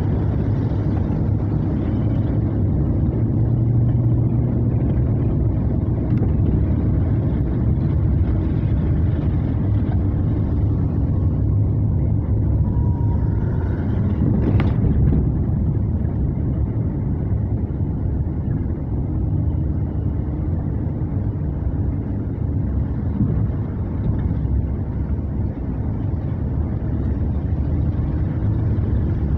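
Steady low rumble of a car driving on a wet road, engine and tyre noise heard from inside the cabin, with a single brief click about halfway through.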